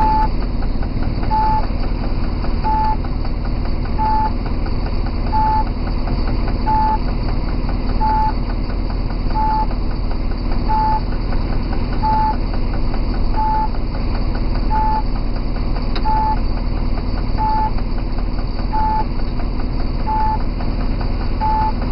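Diesel locomotive engine running with a steady low hum, heard from inside the cab as it moves slowly. A short beep repeats evenly, a little more than a second apart.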